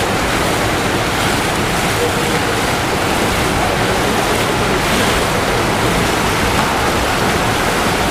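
Steady, loud wash of splashing water as water polo players swim hard after the ball.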